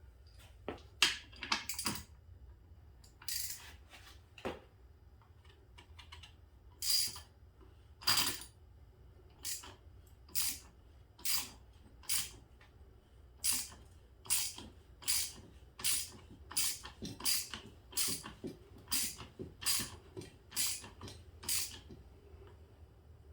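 Metal ratchet clicking in repeated short strokes while a motorcycle fork cap is driven down against its spring. The clicks are scattered at first, then settle into a steady pace of one to two a second that quickens near the end.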